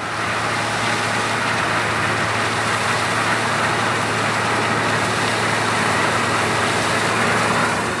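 Claas combine harvester working in the field: its engine gives a steady low hum under a constant loud wash of machinery noise as it cuts and threshes the standing crop.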